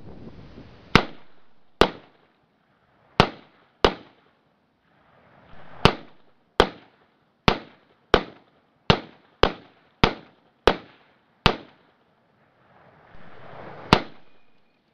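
Rifle shots from two shooters, about fourteen sharp cracks at an uneven pace, each with a short echo trailing off. Spells of rushing noise fill some of the gaps between shots.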